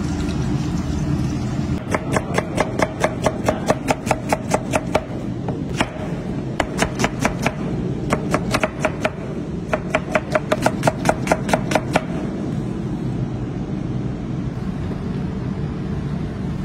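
Chef's knife slicing an onion on a wooden chopping board: quick, even knife taps about five a second, in several runs with short pauses, stopping about two-thirds of the way through. A steady low hum runs underneath.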